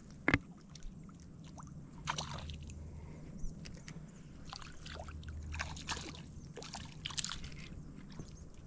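Small splashes and sloshing in shallow water as a hooked chain pickerel thrashes near the bank. A single sharp click comes about a third of a second in, and faint clicks and rustles of handling run through.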